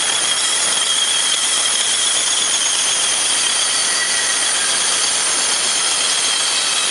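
DoAll 2012-1AC vertical band saw running: a loud, steady hiss with a thin high-pitched whine held at one pitch.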